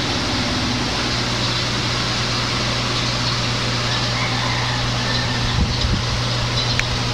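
Steady low hum under an even hiss, with a few soft bumps about two-thirds of the way through.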